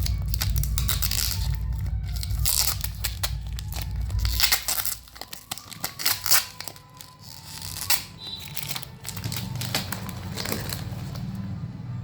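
Plastic parcel packaging being torn open and crinkled in quick, irregular rips and rustles, over background music whose bass drops out about four seconds in.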